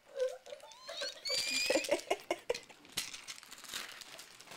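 Rustling and crinkling of Christmas stocking gifts being handled. A brief high, wavering squeal comes about a second in, with a few short low sounds.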